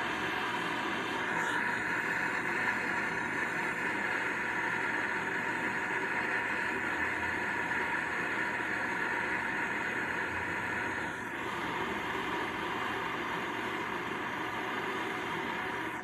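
A torch flame burning with a steady rushing hiss, firming up a freshly thrown clay foot so it is strong enough to carry a heavy pot. The sound shifts slightly about a second in and again around eleven seconds in, and cuts off abruptly at the end.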